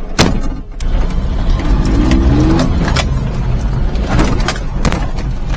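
Daihatsu Hijet mini-truck's three-cylinder engine running, breathing through a newly fitted 32 mm aftermarket carburetor, with the pitch rising briefly about two seconds in as it revs up. A loud knock comes right at the start, and sharp clicks and rattles follow later.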